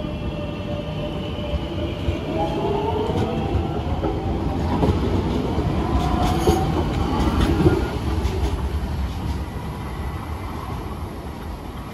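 Circumvesuviana narrow-gauge electric train pulling out and speeding up past the platform. Its motor whine rises in pitch over the rumble and clatter of the wheels, is loudest about eight seconds in, and then fades as the train draws away.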